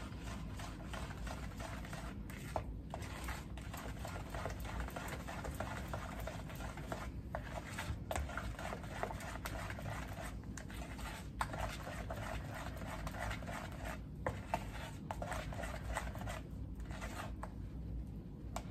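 Spatula stirring and scraping a thick brown butter glaze around a mixing bowl, in uneven strokes with brief pauses.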